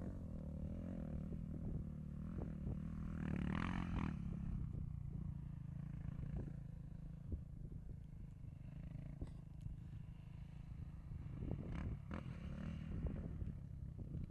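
Quad bike engine running at a distance, its note swelling as the rider revs up about three to four seconds in and again around twelve seconds in.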